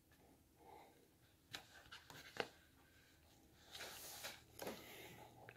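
Near silence with faint rustling and a few light clicks, the sharpest about two and a half seconds in.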